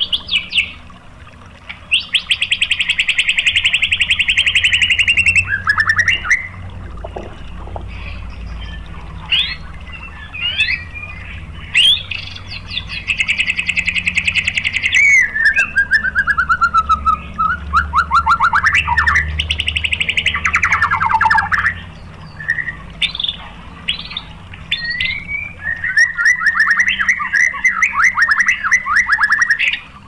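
White-rumped shama singing: long, rapid-fire buzzy trills (the 'tembakan' prized by shama keepers), each lasting several seconds, alternating with short whistles and quick sweeping notes.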